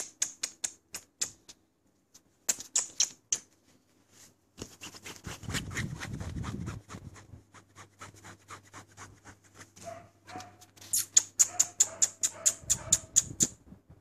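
Beagle puppies' claws clicking in quick runs on a tiled floor as they scramble, wrestle and jump up at a bed, with a scuffle in the middle and a thin puppy whine towards the end.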